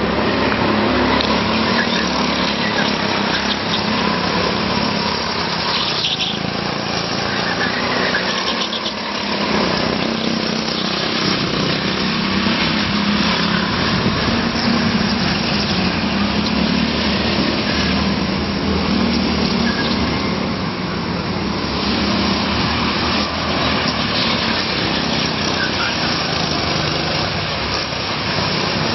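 Go-kart engines running on the track: a continuous small-engine drone.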